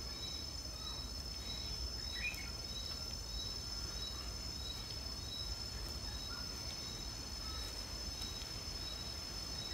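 Insects chirring steadily: several high, unbroken tones together with a short chirp that repeats about every two-thirds of a second, over a low background rumble.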